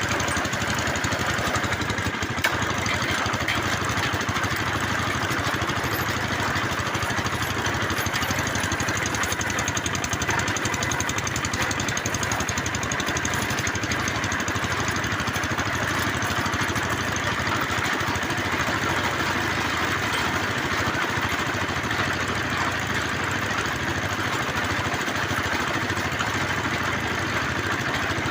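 Engine of a bore well drilling machine running steadily.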